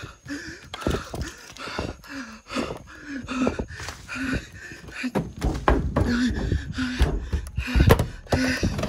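A person panting hard, with short voiced breaths about every half second, mixed with irregular thumps and knocks from hurried movement and handling.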